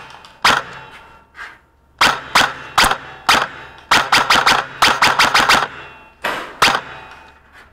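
G&G GC16 Predator airsoft electric rifle (AEG) firing in short rapid bursts and single shots, each shot a sharp click-like crack.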